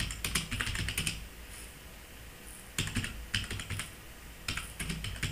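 Computer keyboard typing: three quick runs of keystrokes with short pauses between them.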